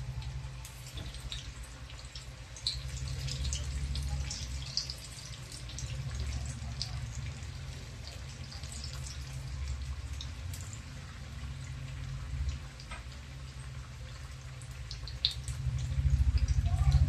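Gram-flour batter pakode sizzling in hot oil, with scattered small crackles and pops, over a low steady hum.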